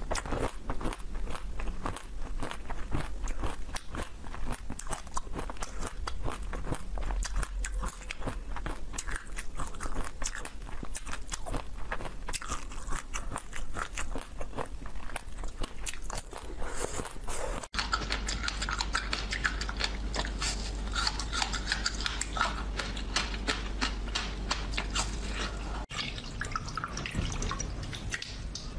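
Close-miked biting, crunching and chewing of a frozen sweet bar with many sharp crunches. About two-thirds of the way in the sound cuts abruptly to a denser, higher crackle, and there is another short break near the end.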